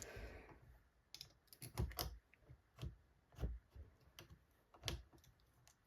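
Faint, scattered light clicks and knocks at an irregular pace, about a dozen in all: small hard objects such as scrap metal pieces and tools being handled and set down.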